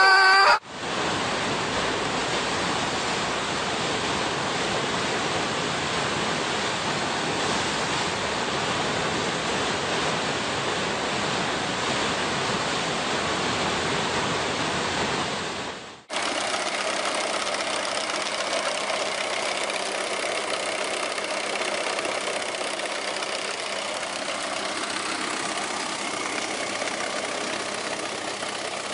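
Steady rushing of white water in a standing river wave, cut off suddenly about halfway through and replaced by a different steady noise with a faint hum in it.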